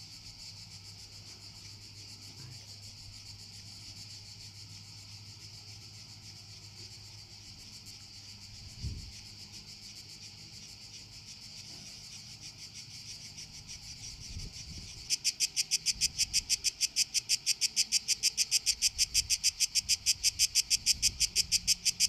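Cicadas singing: a steady high hiss of distant insects, then about fifteen seconds in a close one starts a much louder song of rapid, evenly repeated pulses. A single soft thump about nine seconds in.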